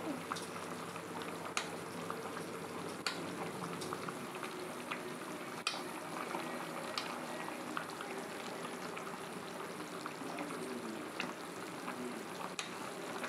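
Soybean and potato curry bubbling at a steady boil in a pan, with scattered small pops and ticks, while a spatula stirs through it.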